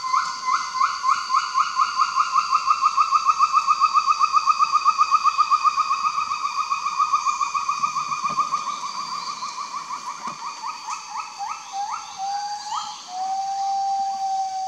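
Kloss's gibbon (Mentawai gibbon, bilou) singing its morning call: a long run of quick rising whoops, several a second, drifting slowly lower in pitch. Near the end the whoops slow into a few longer, drawn-out notes.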